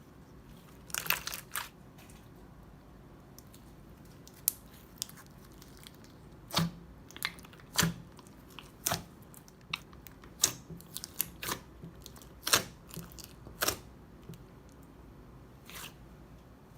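Crunchy slime being squeezed and pressed by hand, giving irregular sharp crackles and pops, some in quick clusters.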